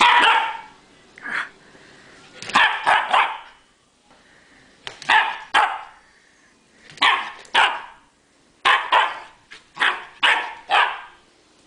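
Husky puppy barking playfully: short barks in bursts of one to three, with pauses of a second or two between bursts.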